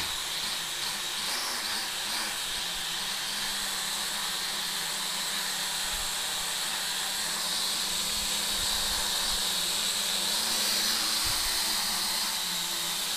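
SY X25 flying-car quadcopter's four rotors spinning in flight, a steady whirring hum with a high whine over it. The drone throttled up on its own when its camera button was pressed.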